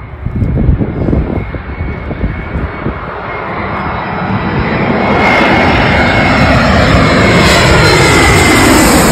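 Twin-engine jet airliner passing low overhead on its landing approach. Its engine noise builds up and is loudest through the second half, with a steady high whine over the rumble and the pitch starting to drop near the end as it goes over.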